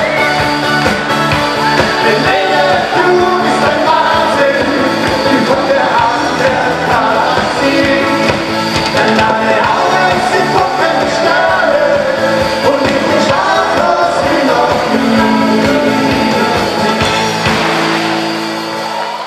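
Live band playing a loud rock-style song with singing, drums, electric guitar and keyboard. Near the end the drums stop and a final chord is held.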